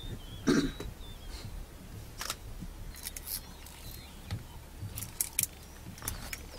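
Outdoor field ambience: a low steady rumble with scattered sharp clicks and rustles, and a few faint high bird chirps near the start.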